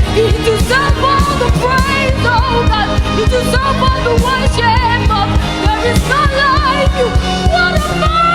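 Live gospel worship music: a band with a steady beat under a voice singing wavering, gliding runs without clear words.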